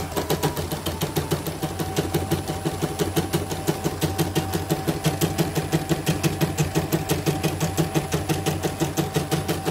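CNY portable embroidery machine stitching at a rapid, even rhythm, its needle bar and presser foot clattering over a steady motor whine. It is running properly after repair of its presser-foot lever and thread tension.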